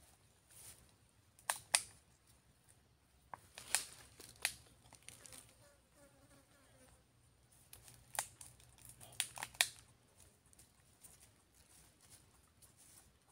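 Scattered sharp crackles and rustles of dry leaves and dirt as a baby monkey squirms on the ground, the loudest about two seconds in and again near ten seconds. A brief faint buzz comes about six seconds in.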